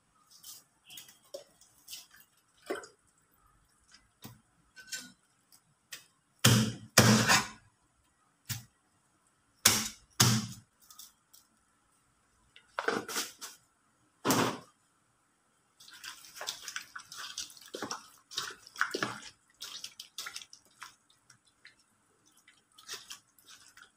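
Meat cleaver chopping raw chicken on a wooden chopping block: sharp, heavy chops a second or more apart, several in quick pairs, through the first part. From about two-thirds in, a denser run of small wet squelches and clicks as raw chicken pieces are mixed by hand in a bowl.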